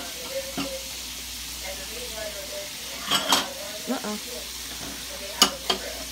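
Pork chops frying in cooking oil, a steady sizzle. A few sharp knocks of a utensil against the pan come about three seconds in and again about five and a half seconds in.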